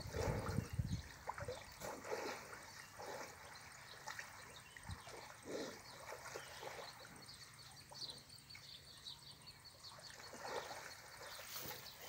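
Water trickling and splashing as water buffalo shift about wallowing in a shallow muddy pool, with a short low rumble near the start.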